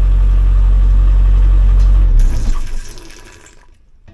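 Sailboat's inboard diesel engine running steadily while it draws fresh water from a pot through its intake hose, flushing salt water out of the cooling system. It shuts off about two seconds in, followed by a brief hiss that fades out.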